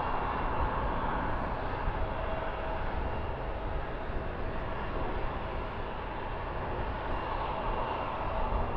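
Jet noise from an Airbus A330-300's Rolls-Royce Trent 700 turbofans as the airliner passes: a steady rush with faint whining tones above it.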